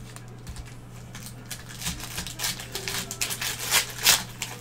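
A foil Panini Mosaic basketball card pack being torn open and crinkled by hand: a run of sharp crackles and rips starting about a second in, loudest near the end.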